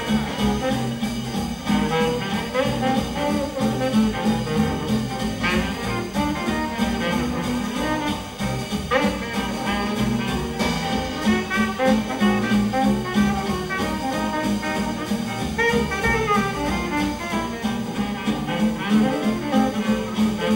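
Small Dixieland jazz band playing live: a tenor saxophone solo over rhythm guitar, double bass and drums keeping a steady beat.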